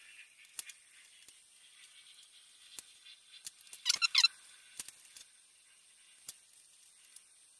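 Insulated 10-gauge copper wire handled and rolled on a wooden bench top: faint scattered clicks and rubbing, with a brief squeak of the plastic sheathing about four seconds in.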